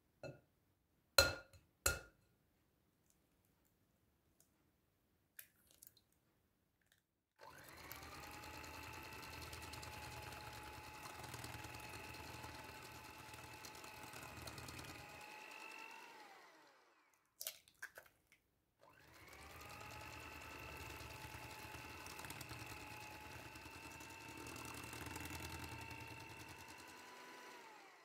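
An egg tapped twice on the rim of a glass bowl, then an electric hand mixer beating the egg into creamed butter and sugar with a steady whine. The mixer runs in two spells of about nine seconds each, stopping briefly in between.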